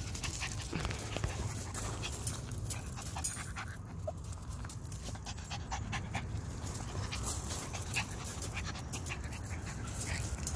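Sable parti toy poodle puppy panting with excitement, with many sharp clicks and crunches of pea gravel under paws and feet.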